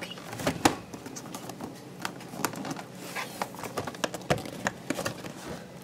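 A cardboard doll box with a plastic window being handled and opened: irregular clicks, knocks and rustles of the packaging.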